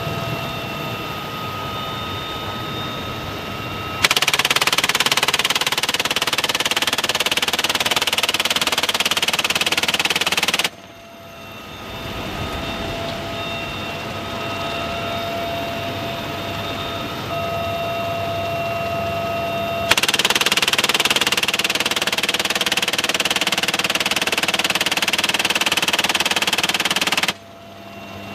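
UH-1Y Huey helicopter heard from inside the open cabin, its turbine and rotor running steadily. A door-mounted .50-calibre machine gun fires two long sustained bursts over it, one about four seconds in and one about twenty seconds in, each lasting about seven seconds and cutting off abruptly.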